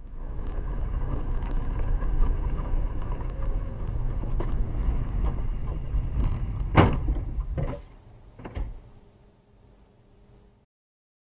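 Low road and engine rumble inside a moving car on a slushy road, with a sharp bang about seven seconds in as it meets an oncoming car, followed by two smaller knocks; the rumble then dies away as the car stops.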